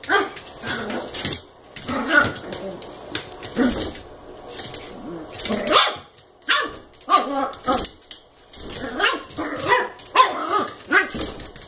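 American Eskimo puppy barking at another dog in play: a string of short barks, more than a dozen, coming in uneven bursts.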